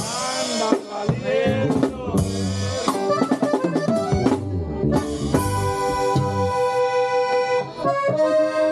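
Band music with accordion melody over a drum kit beat.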